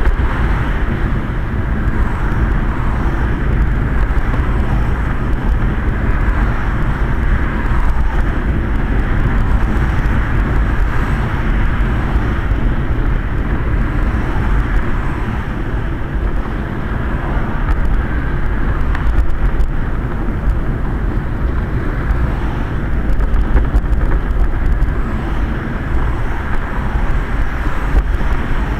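Steady rumble and hiss heard from inside a hooded Quest velomobile riding on a wet road, the deepest rumble strongest, with road traffic alongside.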